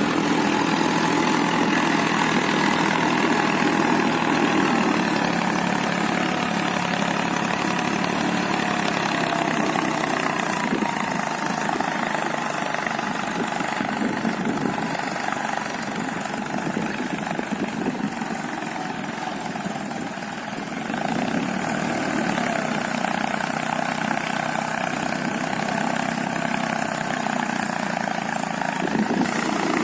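Eicher 480 tractor's three-cylinder 2500 cc diesel engine running steadily while pulling a double disc plough. The engine gets a little quieter around the middle, then louder again about two-thirds of the way through.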